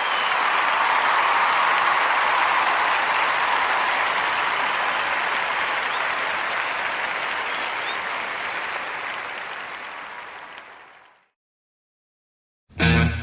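Live concert audience applauding at the end of a song, the applause slowly fading out to silence. About a second and a half later, near the end, guitar music starts.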